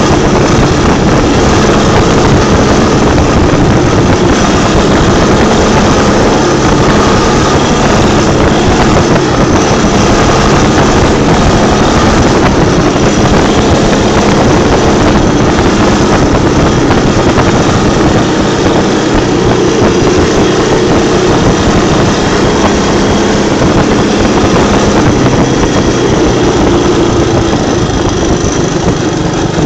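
Three-wheeled ATV engine running steadily while being ridden, loud and close, with rumbling noise from the ride on the microphone.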